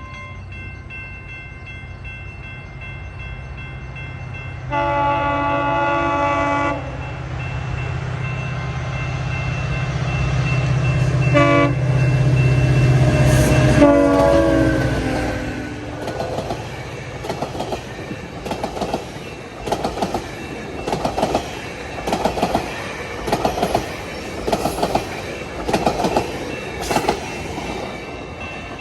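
GO Transit diesel passenger locomotive 660 approaching a level crossing over its ringing crossing bells. Its horn sounds a long chord blast, then shorter blasts as the engine's rumble swells and passes. The passenger cars follow, wheels clicking over the rail joints about once a second.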